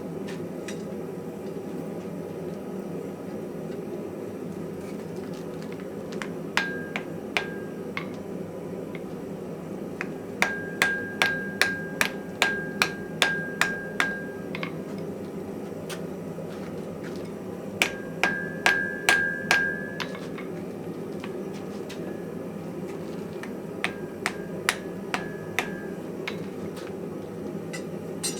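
Hand hammer blows on metal at an anvil, coming in bursts: a few strikes, then a run of about a dozen, then shorter runs, each blow ringing briefly. A steady low rumble runs underneath.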